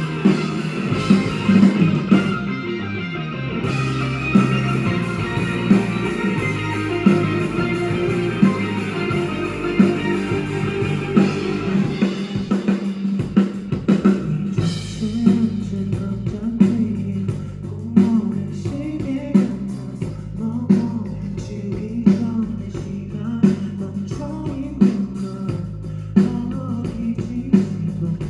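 Live band playing an instrumental passage: drum kit keeping a steady beat under guitar.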